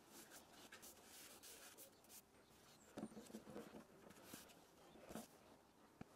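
Faint rubbing and scraping of hands handling the broken halves of a natural-edge lime-wood bowl, with a few soft knocks about three seconds in and again near five seconds.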